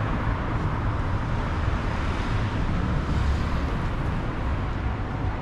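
City street traffic: a steady low rumble of cars going by on a busy road.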